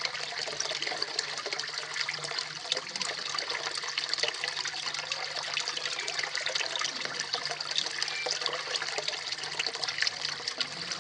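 Small waterfall splashing steadily into a koi pond, with a faint low hum underneath.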